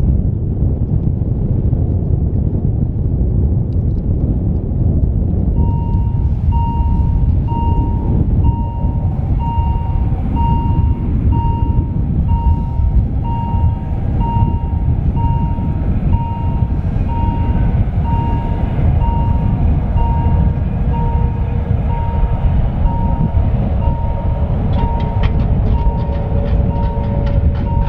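Wind buffeting the microphone in a snow squall, a steady loud low rumble. From about five seconds in, an electronic warning beep repeats at one pitch, roughly twice a second, and near the end a quick run of clicks joins it.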